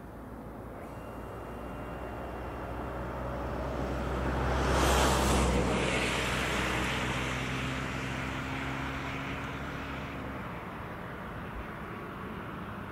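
Air rushing over a 3 m span Schleicher K 8b scale model glider as it makes a low pass. The whoosh swells to a peak about five seconds in, then fades slowly as the glider flies away.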